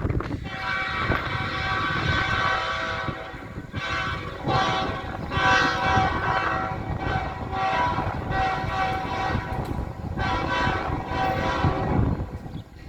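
Freight locomotive's multi-chime air horn played as a horn show: one long blast of about three seconds, then a run of shorter blasts of uneven length, each chord of several tones sounding together. A low rumble of the train runs underneath.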